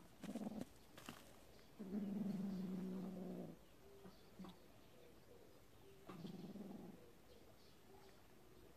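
Kitten growling low over a mole it has caught: a short growl at the start, a long one of nearly two seconds about two seconds in, and another about six seconds in.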